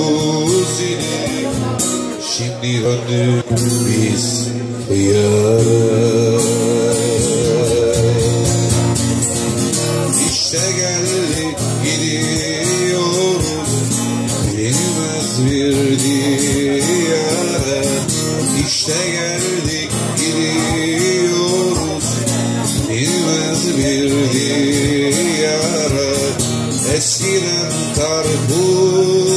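A man singing a Turkish song to his own strummed acoustic guitar, with some long notes held with vibrato.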